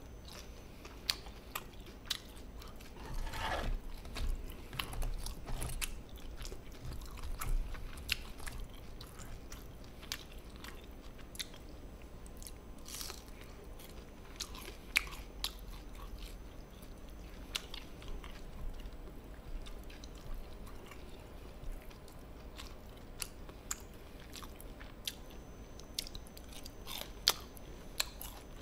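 Person chewing and biting food close to the microphone, with crunching and sharp clicks scattered throughout and a busier stretch of chewing about three to six seconds in.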